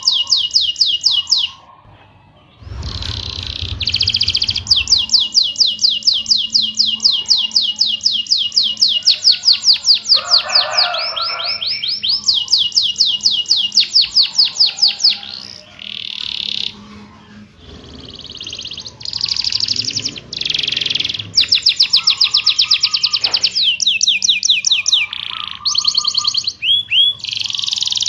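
Domestic canary singing a rolling song: long, fast trills of rapidly repeated high notes in phrases separated by short breaks, with chirps between. A brief low rumble sits under the song a few seconds in.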